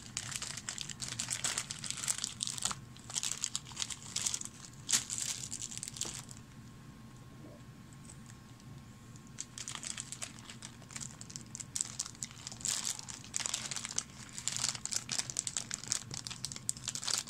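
Clear plastic bags crinkling as plastic miniatures are handled and taken out of them. The crinkling comes on and off and goes quiet for a few seconds in the middle.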